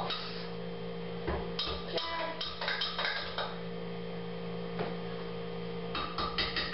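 Scattered clicks and knocks of a blender jar and a spatula being handled, in clusters about a second and a half in and again near the end, over a steady electrical hum.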